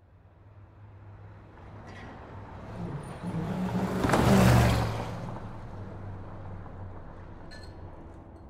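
A motor vehicle drives past close by on the road, its engine hum and tyre noise swelling to a peak about halfway through and then fading away, over steady traffic noise.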